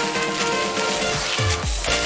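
Background music: a steady melody, joined about a second in by a deep bass beat that drops in pitch on each hit, about two beats a second.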